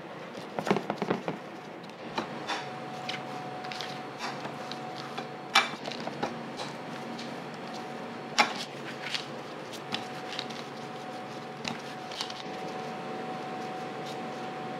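Light taps, knocks and sharp clicks of a rolling pin and gloved hands working dough on a plastic cutting board. The two sharpest clicks come about five and a half and eight and a half seconds in. A steady machine hum runs underneath.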